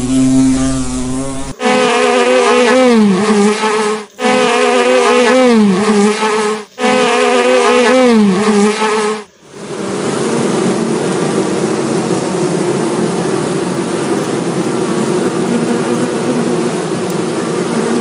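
Bees buzzing. A single buzz with a wavering pitch that dips at the end plays three times, with short breaks between. About nine seconds in, it gives way to a denser, steadier buzzing.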